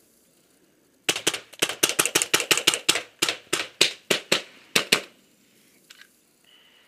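Paintball marker firing a rapid string of about twenty shots, roughly five a second, for about four seconds before stopping.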